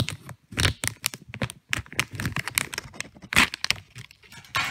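A small package being torn open by hand: irregular crinkling, crackling and tearing, with the loudest rip about three and a half seconds in.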